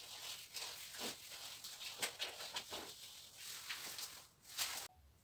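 Faint rustling and scattered soft taps as a potted chili plant is handled and shifted into place on a tiled floor, cutting off abruptly near the end.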